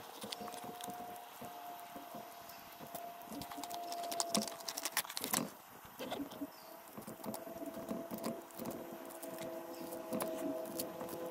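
A run of light clicks, taps and scrapes over a faint steady hum, with a cluster of sharper clicks about halfway through.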